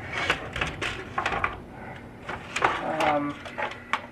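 Big Mouth Billy Bass animatronic toy running with its casing open: its sung audio plays through the small built-in speaker in short phrases, mixed with sharp clicks and knocks from the mechanism. Its mouth motor only vibrates instead of opening the mouth, which the owner suspects may be an electrical fault rather than a mechanical one.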